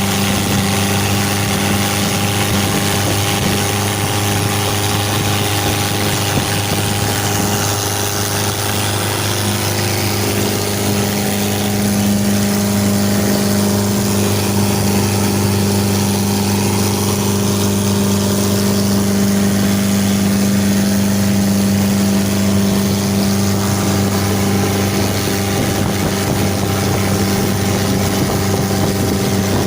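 Mitsubishi L300 van engine running steadily at a constant speed, a little louder from about twelve seconds in.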